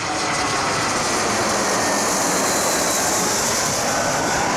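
Jet airliner's engines passing low overhead: a loud, steady rush with faint whining tones.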